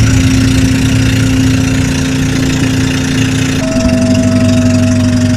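Outrigger boat's engine running steadily under way, a loud, even drone. A steady higher whine joins about two-thirds of the way through.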